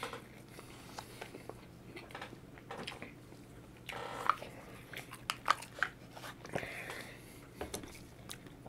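A man chewing a mouthful of steak burger close to the microphone: quiet, wet chewing smacks and clicks, a little more frequent about four to six seconds in.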